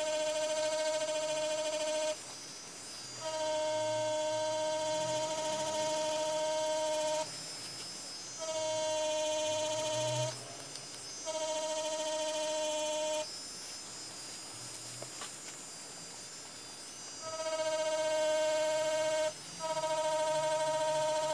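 DragonHawk Mast Archer wireless rotary tattoo machine running with a steady high-pitched hum as its needle works colour into fake skin. It stops and restarts several times, about every two to four seconds, with one longer pause of about four seconds past the middle.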